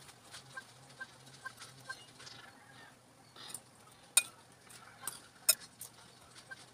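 A metal fork clinking sharply against a ceramic bowl twice while a bread roll is dipped in beaten egg, with small soft taps of hands working in breadcrumbs before it.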